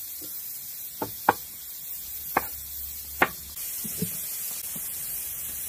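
Chinese cleaver cutting through tomato and striking a wooden cutting board: four sharp knocks spread over about two seconds, then a few fainter taps.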